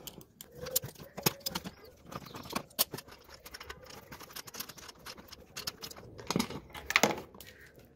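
Small metal screws clicking and ticking as they are turned out by hand from the car's front bumper mountings. The ticks are irregular, with a louder click about seven seconds in.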